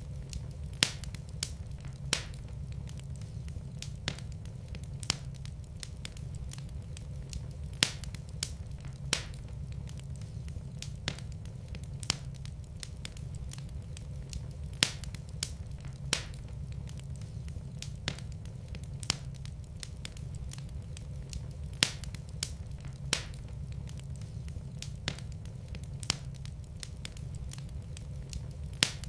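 Fire burning in a fireplace, crackling with sharp, irregular pops and snaps over a steady low rumble of the flames.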